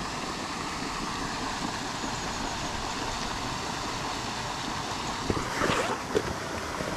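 Steady rushing, splashing water from a lake surface aerator. About five to six seconds in come a few sharp clicks and a short rustle as a method feeder is pressed into its mould and handled.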